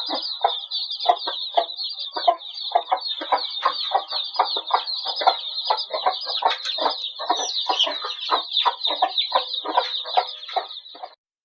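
Hens clucking in short, quick calls over the constant high peeping of many chicks. The sound cuts off abruptly near the end.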